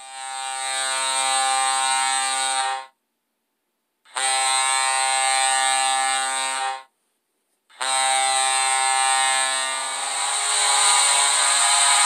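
Vegas Golden Knights' NHL arena goal horn sounding three long, steady blasts, the first two each under three seconds with short silent breaks between, the third running on.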